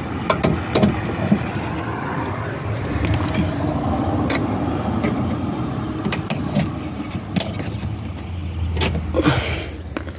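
Plastic trim clips and panels of a 2018 Mazda 3 liftgate being pried off: scattered sharp clicks and a longer scrape near the end, over a steady low hum.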